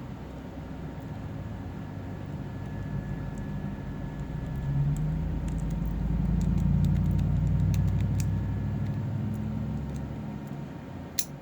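Faint, scattered light clicks of a lock pick and tension wrench working the pins of a small padlock, with one sharper click near the end. Under them a low rumble swells and fades.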